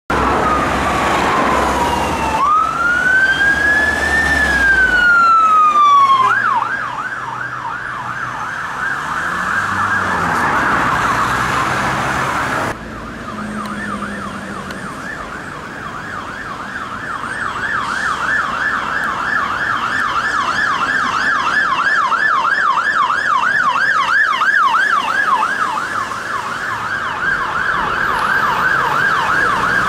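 Emergency vehicle sirens: a slow rising and falling wail that switches to a fast yelp about six seconds in, the yelp going on to the end, with a second, higher yelp joining past the middle.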